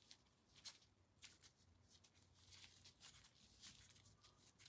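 Near silence, with a few faint soft ticks and rustles of nitrile-gloved hands rubbing serum gently into the skin of the face.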